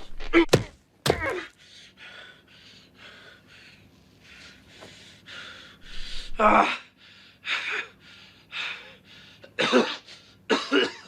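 Short wordless cries, grunts and gasps from animated characters fighting, with two sharp thuds in the first second.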